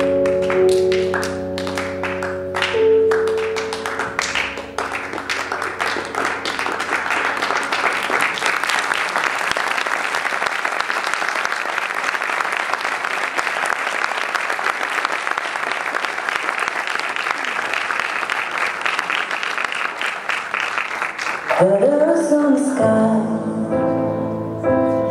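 Audience applause, dense and steady, swelling up for about eighteen seconds as a piece of music with held notes ends in the first few seconds. About twenty-one seconds in, the applause stops and a song with a singer starts.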